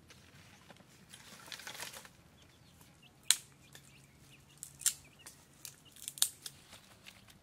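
A short rustle of leaves, then a run of sharp snips and clicks, irregular and a second or so apart: rabbits biting through fresh green leaves.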